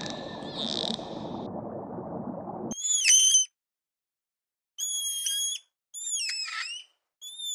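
An animal's high-pitched whistled calls, four short calls a second or two apart, each bending and dipping in pitch. They follow a noisy field recording that cuts off suddenly about three seconds in.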